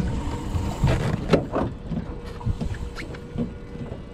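Irregular clicks and knocks over a low rumble, with a faint steady hum; the loudest knocks come about one and one-and-a-half seconds in.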